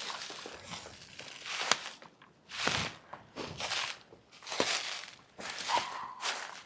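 Footsteps of a person walking over the ground, about one step a second, with a single sharp click a little under two seconds in.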